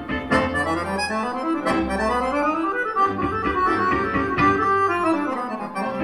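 Accordion playing a waltz melody live, accompanied by piano and a small string ensemble with low bass notes underneath.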